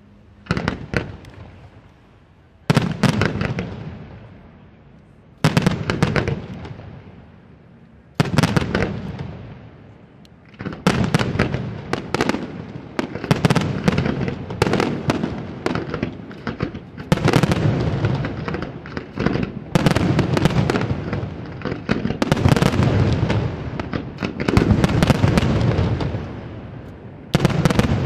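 Aerial firework shells bursting in a display. At first there are single loud booms a few seconds apart, each trailing off. From about ten seconds in, a dense barrage of rapid overlapping bursts and crackle follows.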